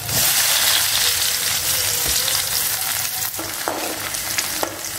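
Chopped garlic dropped into hot oil with chopped ginger in a kadai: the oil sizzles loudly the moment it goes in, then the frying eases slightly. A ladle stirs the pan, giving a few light knocks in the second half.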